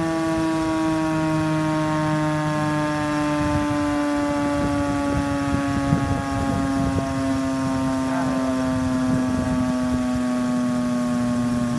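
Fire station outdoor warning siren sounding during its monthly test: one steady, sustained tone that slowly sinks in pitch, with a low rumble underneath from a few seconds in.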